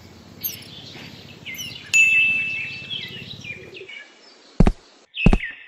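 Small birds chirping in short, falling calls, with a single bright ping about two seconds in. Near the end come two short, sharp knocks.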